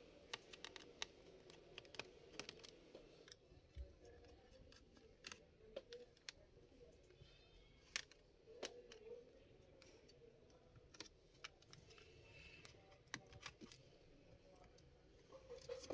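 Faint, scattered small clicks and ticks of a screwdriver working the bottom-cover screws of a Lenovo Yoga 11e laptop, with near silence between them.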